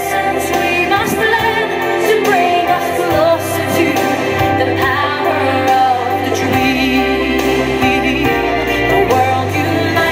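Loud pop-ballad music with a female singer's voice gliding over a full backing.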